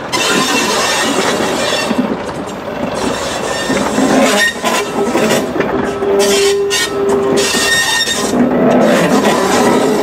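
Class 108 Derby Lightweight diesel multiple unit rolling past at low speed: wheels rumbling and clattering over the rail joints, with short metallic wheel squeals, the longest about halfway through.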